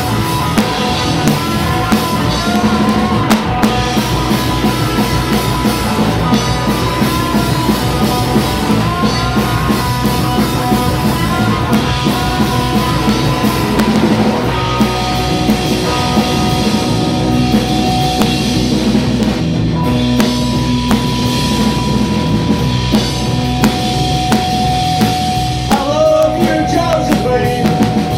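Live rock band playing loudly: two electric guitars over a drum kit in an instrumental passage, with a voice starting to sing near the end.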